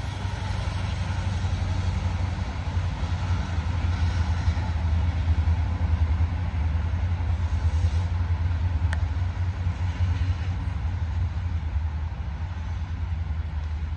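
CN freight train rolling past with a steady low rumble that swells slightly midway. There is a single faint click about nine seconds in.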